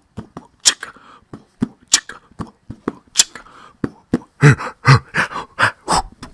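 Beatboxed mouth percussion: sharp snare-like clicks at a steady beat about every 0.6 s, with a quick run of deeper, pitched kick-like hits about four to six seconds in.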